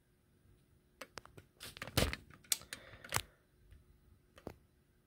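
Short bursts of sharp clicks and plastic crinkling starting about a second in and lasting about two seconds, then a few fainter clicks: a sealed clear plastic bag full of costume jewelry being handled, the metal and bead pieces clacking inside.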